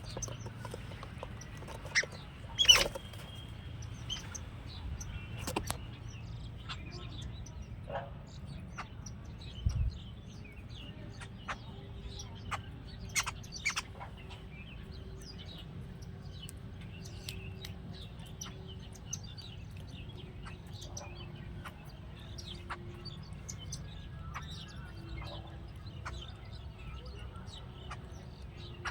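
Jungle babblers calling: scattered short, harsh chirps and squeaks, with one much louder sharp sound about three seconds in and a dull thump near ten seconds, over a steady low rumble.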